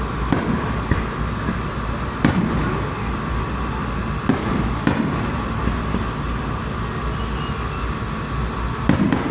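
Fireworks shells bursting in an aerial display: about half a dozen separate sharp bangs, irregularly spaced, over a steady background hum.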